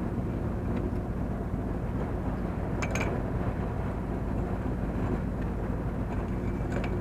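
Small sailboat's inboard diesel engine running steadily while motoring, a low, even drone. Two brief high chirps sound about three seconds in and near the end.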